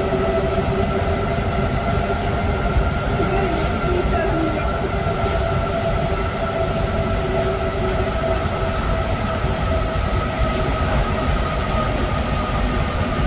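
Paris Métro MP05 rubber-tyred train running through a tunnel: a steady rumble from the tyres and running gear with a steady whine from the traction motors over it, easing slightly lower in pitch near the end.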